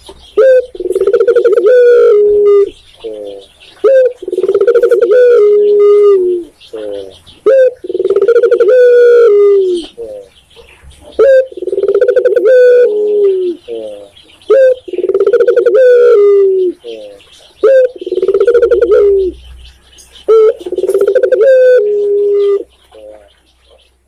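Caged pale ringneck dove cooing: seven rolling coo phrases, one about every three and a half seconds, each led in by a short single note.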